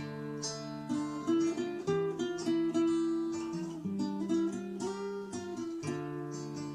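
Acoustic guitar music: a melody of plucked notes over lower bass notes.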